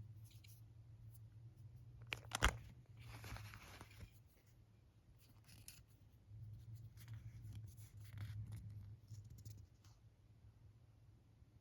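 Close handling noises of small objects: a sharp click about two and a half seconds in, then bouts of scraping and rustling, over a steady low hum.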